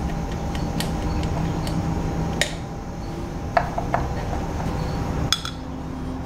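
Scattered light metal clicks and clinks of hand tools and engine parts being handled during intake manifold removal on a K24 engine. Sharper knocks come about two and a half, three and a half and five and a half seconds in, the one near three and a half seconds the loudest. A steady low hum runs underneath.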